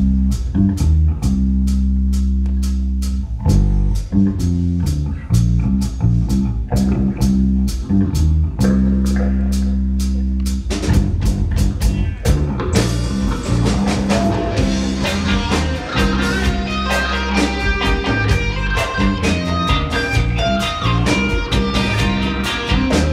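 A live rock band playing: a heavy bass-guitar line over a steady drum beat, with electric guitars coming in about halfway through and filling out the sound.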